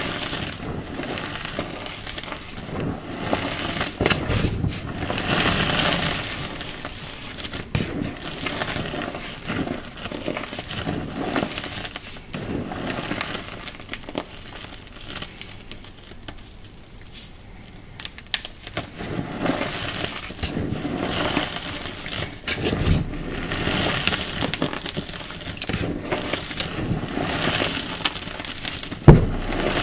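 Hands crushing and crumbling soft, powdery chalk-like clumps: a crisp, crackling sizzle that comes in waves as the clumps are squeezed. It eases off about halfway and picks up again. A single sharp knock sounds just before the end.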